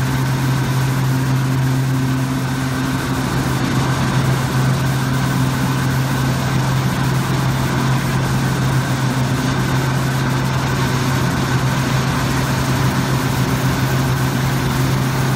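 Aluminium checker plate coiling line running: a steady machine drone with a strong low hum and a fainter higher hum that drops back about three seconds in, over an even mechanical rush.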